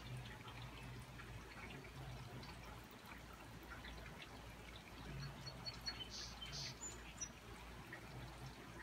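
Rainwater dripping and trickling after a thunderstorm: a faint, even patter of drops, with a few brief high chirps about six seconds in.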